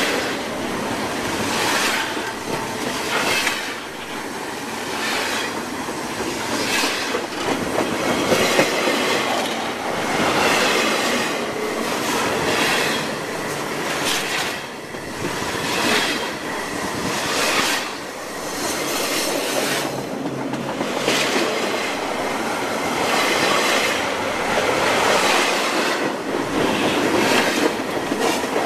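Double-stack container freight cars rolling past at very close range: steel wheels on the rails making a continuous rumble, with repeated clacks about every second as the wheel sets pass.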